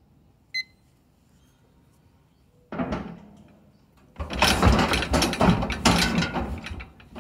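A short electronic timer beep. Then, from about three seconds in, loud repeated clattering and banging of the steel squeeze chute as the cow shifts against its bars and gates.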